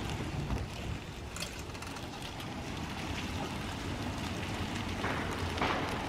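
Outdoor background noise: a low, uneven rumble under a steady hiss, with a few faint clicks.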